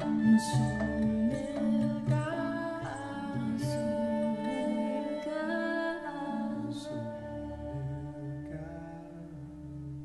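Live acoustic band music in its closing bars: voices holding and gliding between notes over sustained instrument tones, with three brief shimmering strokes, growing gradually quieter.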